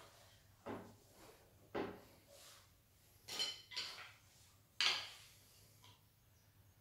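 Hard metallic clinks and knocks as parts of an Optimum OPTIsaw SP 13V bandsaw are handled and fitted, the saw not running: about five separate knocks, the loudest a little before five seconds in.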